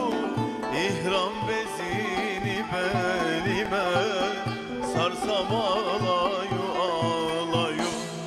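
Turkish ilahi performed live: a male voice singing melismatically over an end-blown ney flute, plucked kanun and hand drums beating about twice a second. The song closes on a final accent about eight seconds in, which rings away.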